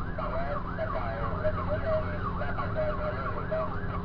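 Rescue vehicle's siren on a fast yelp, its pitch rising and falling about three times a second, over the low rumble of the moving vehicle.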